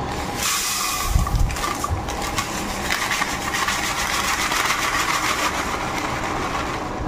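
Ground spice powder pouring steadily from a plastic packet into a plastic storage jar, a continuous hiss that starts about half a second in, with the packet crinkling.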